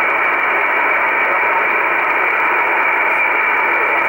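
Icom IC-R8500 communications receiver in upper-sideband mode playing a steady hiss of shortwave band noise, with no signal heard on the frequency. The hiss is narrow and muffled, with no high end above the receiver's sideband filter.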